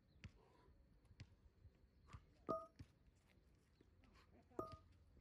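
Dumbbells knocking down onto asphalt during renegade rows: two metallic clanks with a short ring, about two seconds apart, over faint scattered ticks.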